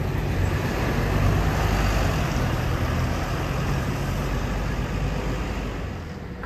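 Double-decker bus passing close and pulling away, its engine a steady low rumble over tyre and traffic noise, growing fainter near the end as it drives off.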